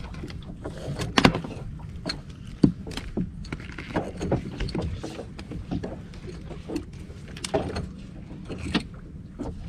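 A small open fishing boat on the sea, with a steady low rumble throughout. Scattered sharp knocks and clicks come from fishing tackle being handled, the loudest about a second in and again near three seconds.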